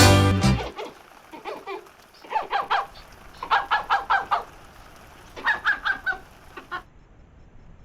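European badgers calling: several bouts of rapid, short, high calls, three to five in a row, each bout lasting under a second. Accordion music cuts off in the first second.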